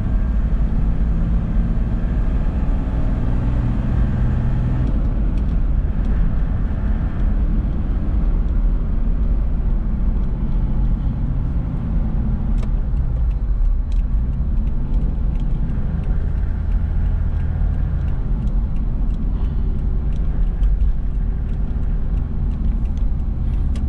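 Toyota Land Cruiser 70-series cruising at highway speed, heard from inside the cab: a steady drone of engine and tyre noise whose engine pitch shifts a little now and then.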